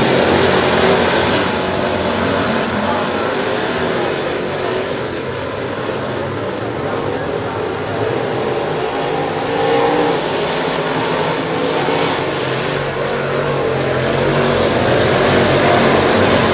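A pack of dirt late model race cars with crate V8 engines running hard at racing speed. The loud engine noise is strongest as the field passes close at the start and again near the end, and eases somewhat in the middle as the cars run down the far side of the track.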